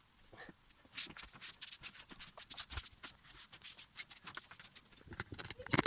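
Irregular scratchy rubbing and scrubbing strokes from cleaning the casing of a sliding mitre saw, with one sharp knock near the end.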